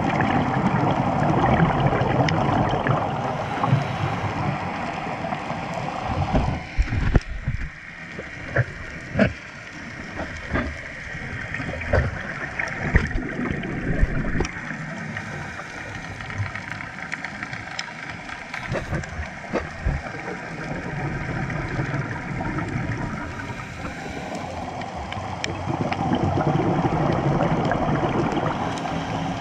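Muffled rushing of water heard underwater, dropping to a quieter stretch for most of the middle with scattered sharp clicks and knocks and a faint steady hum, then swelling again near the end.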